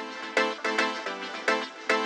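Background music: electronic, with struck notes on a steady beat of about two to three a second.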